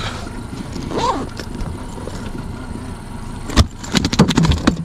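A bag being fastened by hand: one sharp click about three and a half seconds in, then a quick rasping run of clicks lasting under a second.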